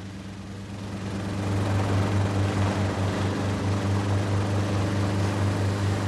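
Helicopter in flight: a steady low engine-and-rotor drone with a slight pulse, growing louder over the first two seconds and then holding.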